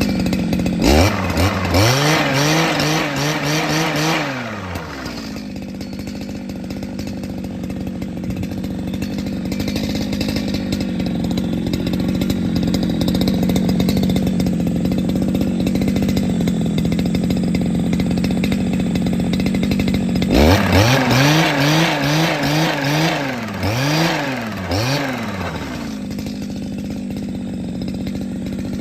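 Small engine running steadily at idle, revved up and let back down twice: once about a second in and again about two-thirds of the way through.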